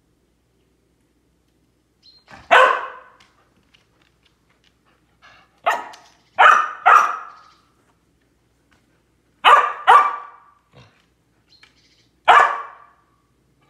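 Samoyed barking: about seven sharp barks, singly and in quick pairs, with pauses of a couple of seconds between.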